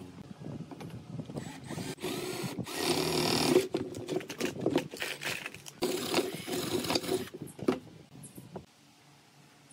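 Cordless drill running into a wooden rocker piece in two bursts of about a second and a half each, with knocks of the wood being handled before and between them.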